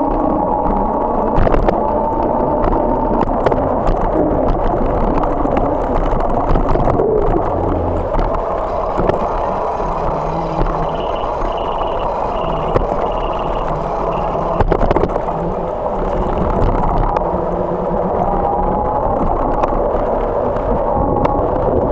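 Bicycle rolling along a paved path: a steady rumble from the tyres, with frequent knocks and rattles as the bike and camera go over cracks and bumps in the pavement.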